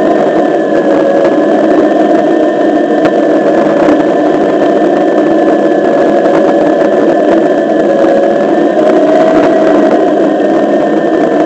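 Onewheel XR electric board rolling on asphalt: the hub motor's steady whine, drifting gently in pitch, over a dense rumble of the tyre on the road.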